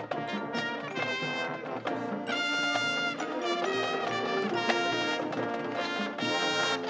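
High school marching band playing, brass section sounding full held chords over drums, with faster passages between the long notes.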